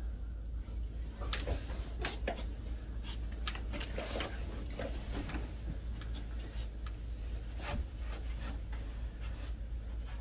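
Scattered light knocks, clicks and rustling as a person moves about and handles things on a wooden desk and dresser, over a steady low hum.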